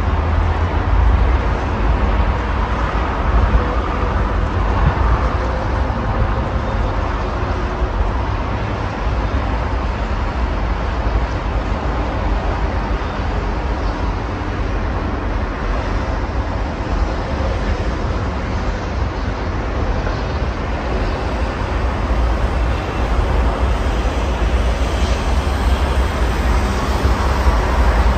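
Steady road traffic noise from cars and buses on a busy multi-lane road, a constant low rumble with no single vehicle standing out, slightly louder near the end.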